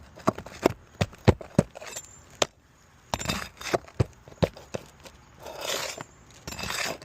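A metal tool knocking and prying at asphalt roof shingles and their nails: about a dozen sharp, irregular knocks, with a scraping, rustling stretch near the end.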